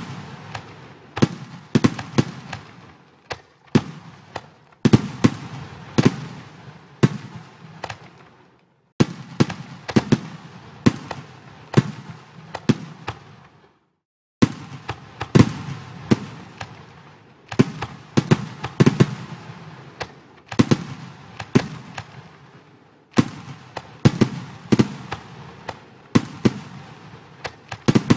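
Fireworks sound effects from a computer fireworks simulator: sharp bangs about one or two a second, each trailing off in crackle. The sound cuts out completely twice for about half a second.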